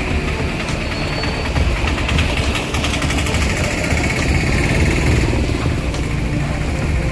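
Motorcycle engines running steadily in street traffic.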